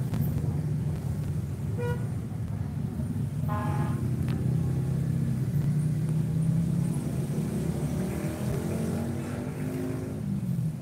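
Large diesel bus engine running as it passes, with a short horn beep about two seconds in; near the end its engine note rises as it pulls away, then falls off.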